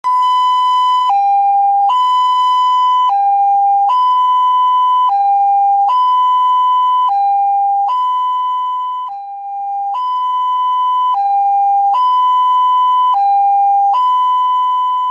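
Ambulance two-tone siren, a higher and a lower note taking turns about once a second at a steady pitch. It dips briefly in loudness about nine seconds in.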